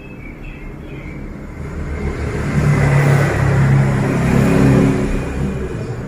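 A motor vehicle driving past, its engine hum growing louder over the first few seconds, loudest around the middle, then fading away.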